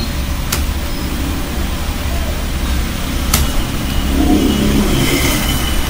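A steady low background rumble with hiss, broken by two sharp clicks, one about half a second in and one a little past three seconds.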